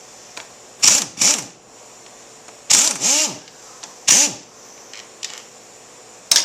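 Short bursts of a small power tool's motor whirring up and down, about six times, as it loosens the fork's axle pinch bolts.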